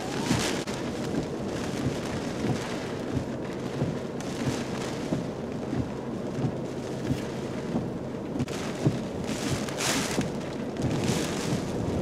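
Hurricane wind and driving rain beating on a car, heard from inside the cabin, with louder gusts surging every few seconds.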